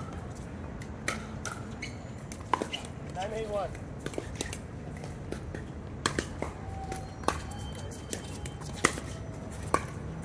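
Sharp pops of pickleball paddles hitting the plastic ball, scattered at irregular intervals over a steady low background rumble.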